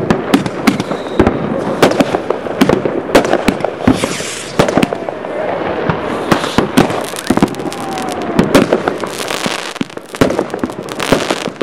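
Fireworks going off: a dense, irregular run of sharp bangs and crackles over a continuous hiss.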